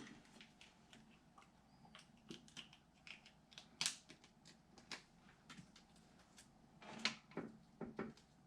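Faint, irregular clicks and light taps of small parts and tools being handled, the clearest a little under four seconds in and around seven seconds, while fitting a component into a PC case.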